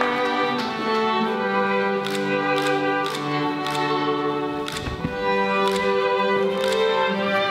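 Classical string music led by violin, moving through long held notes.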